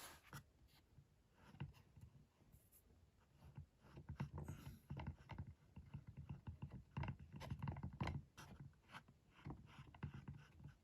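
Faint, irregular small clicks and light scraping, like small painted metal model castings being handled and set down on a work surface. This starts a few seconds in and runs on until near the end.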